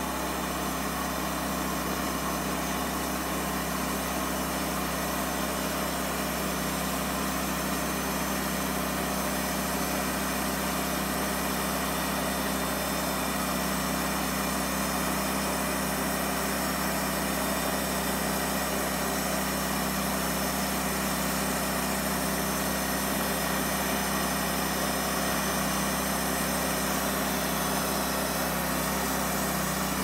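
Wood-Mizer LT40 portable band sawmill running, a steady unchanging machine drone.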